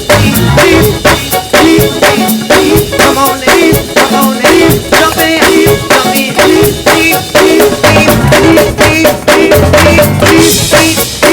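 Live gospel praise band playing a fast instrumental groove, the drum kit driving it with sharp, evenly spaced hits several times a second over sustained chords.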